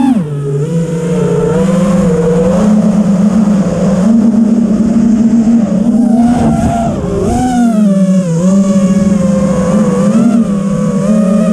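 Five-inch FPV freestyle quadcopter's brushless motors (T-Motor F40 III 2600 Kv) and three-blade 5-inch props whining. The pitch keeps rising and falling with the throttle, with a short drop about three-quarters of the way through.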